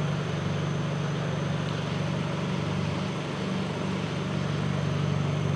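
Tenth-generation Honda Civic's engine running with a steady low drone.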